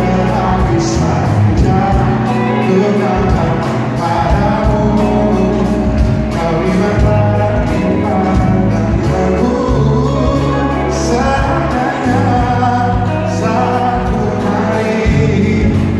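Live pop song performed by a band: a male lead voice singing over sustained bass and a regular drum beat.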